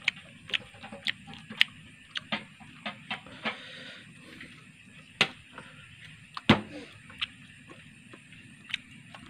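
Irregular light clicks and taps from a hand picking apart grilled catfish on a plastic plate, with one louder knock about six and a half seconds in.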